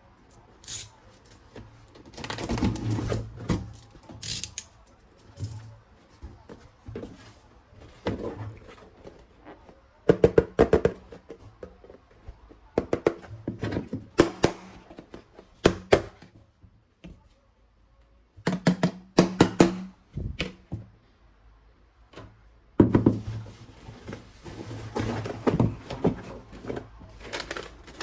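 Plastic toy guns and their parts being handled and unpacked: clusters of sharp clicks, knocks and thunks with short quiet gaps between.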